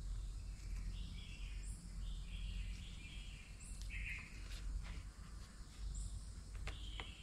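Birds chirping over a steady low outdoor rumble, with one high call repeating about every two seconds. A few sharp clicks come near the end.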